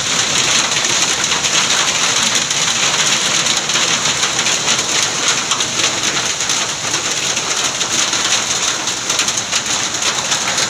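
Heavy hailstorm: hailstones and rain pelting the ground in a dense, steady patter of many small impacts.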